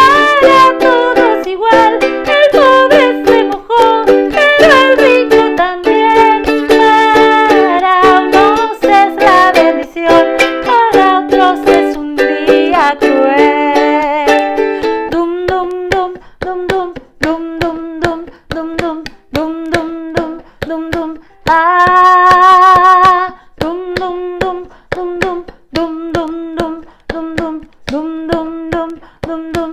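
Music: the children's song played on a small strummed string instrument in a candombe rhythm, with singing. About fifteen seconds in, the dense chords thin out to separate held notes with short pauses between them.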